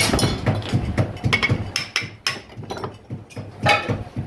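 Rapid, irregular knocks and clicks of hand work on fan parts in a workshop, with one harder knock near the end.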